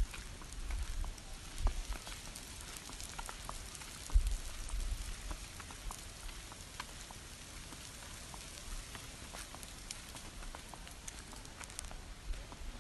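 Faint, steady crackling hiss with scattered small ticks, like light rain pattering, and a couple of low thuds, the clearest about four seconds in.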